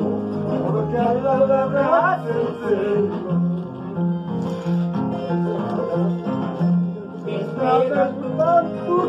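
Andean harp being played, a plucked tune with steady low bass notes under the melody.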